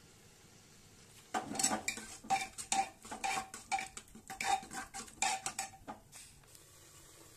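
A metal ladle stirring and scraping mashed carrots and milk in an aluminium pressure cooker, clinking against the pot in quick repeated strokes. The strokes start about a second in and stop about a second before the end.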